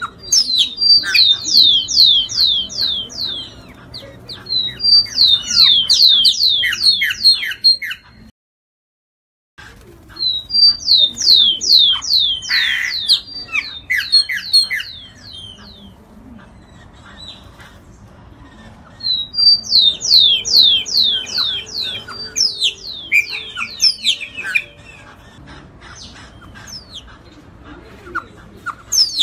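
Giant cowbird singing: bursts of quick, downward-sliding whistled notes, about four a second, repeated several times with pauses between them. The recording cuts out completely for about a second, about eight seconds in.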